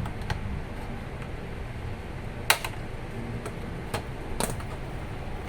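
A few sharp plastic clicks and snaps, the loudest about two and a half seconds in, from the ASUS laptop's plastic case latches being pried apart while the case is opened.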